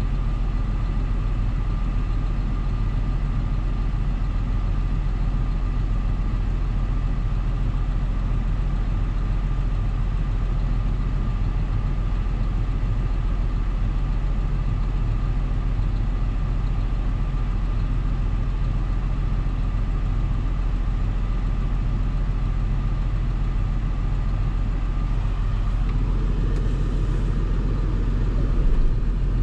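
John Deere 6930 tractor's six-cylinder diesel engine running steadily while pulling a cultivator, with a steady high whine over the deep engine sound. About 26 seconds in the tone changes, with more mid-range noise, and there is a brief louder moment near the end.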